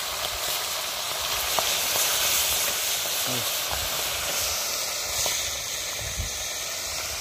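Fish deep-frying in a pot of hot oil: a steady sizzling hiss with occasional small pops.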